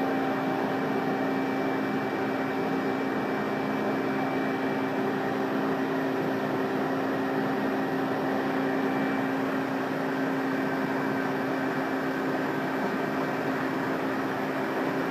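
Amada CNC hydraulic press brake running: a steady machine hum and whir with a few held tones, as of the hydraulic pump idling.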